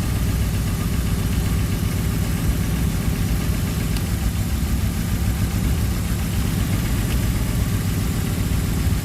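BMW M50 inline-six engine idling steadily, with an even, unchanging note; shortly before, it was judged to sound nice during the misfire check.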